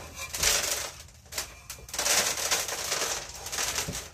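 Bonsai root ball and its gritty soil scraping and crunching as the tree is lifted out of its pot and set down in a plastic tub. It comes as a run of crackling, rattling bursts, with the busiest stretch in the second half.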